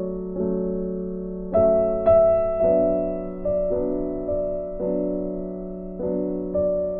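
Background piano music: gentle chords and single notes struck every half second to a second, each ringing and fading.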